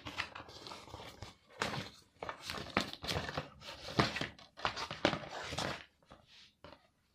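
Cardboard mailer envelope being torn open and handled: a quick run of rips, rustles and knocks that stops about six seconds in.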